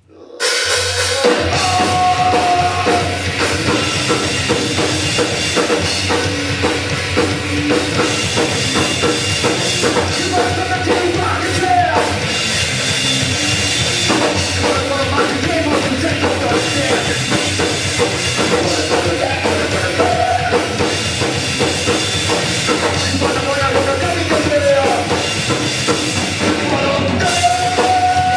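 Live rock band playing loud, with a drum kit to the fore; the music starts suddenly out of near silence about half a second in.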